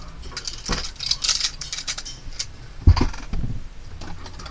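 Irregular clatter and rustling of small objects being handled, with one heavier thump about three seconds in.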